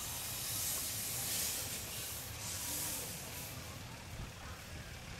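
Steam hissing from a narrow-gauge steam locomotive, swelling for about three seconds and then easing off.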